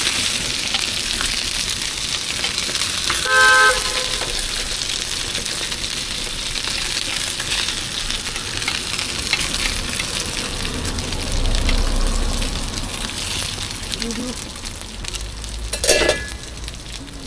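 Food sizzling and frying on a hot street-stall griddle, a steady hiss that slowly fades. A short vehicle horn toots once about three and a half seconds in.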